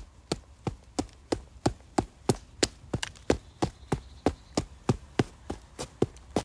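Foley sound effect: a steady series of sharp knocks, about three a second, some nineteen in all.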